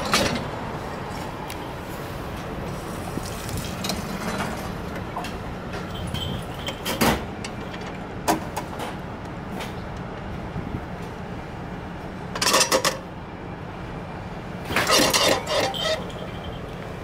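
The plastic flap of an udon vending machine's take-out slot being pushed open and the bowl of udon handled and lifted out: a few sharp clicks, then two short clattering bursts in the second half, over a steady low hum.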